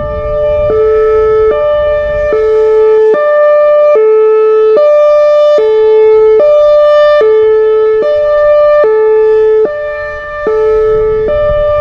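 Whelen Vortex outdoor warning siren sounding its Hi-Lo signal: two tones alternating about every 0.8 s, the lower tone louder than the higher.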